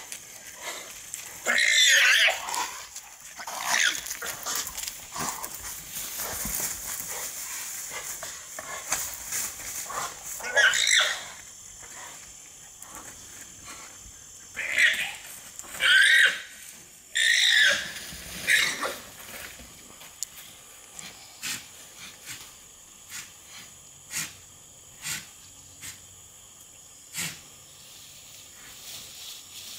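Male alpacas screaming while they fight: a series of shrill, wavering cries, the loudest bunched in the middle. They give way to a few short ticks near the end.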